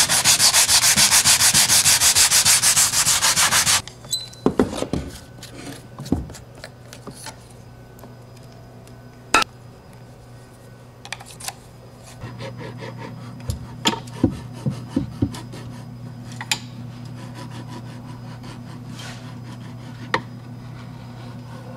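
Sandpaper rubbed back and forth fast over a black plastic subwoofer port tube, loud for about the first four seconds. After that come scattered light clicks and knocks of handling the port and an epoxy applicator gun, over a steady low hum.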